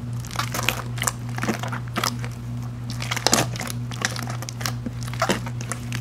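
Pink fluffy slime being squeezed and kneaded by hand, giving a run of irregular squelchy clicks and crackles, over a steady low hum.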